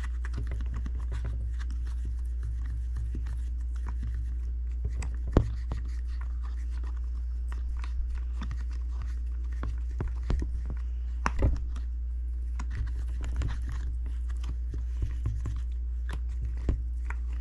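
Fingertip rubbing toothpaste over a diving mask's lens to strip the manufacturer's film: soft scratchy rubbing and small handling clicks from the mask, with sharper knocks about five and eleven seconds in. A steady low hum lies underneath.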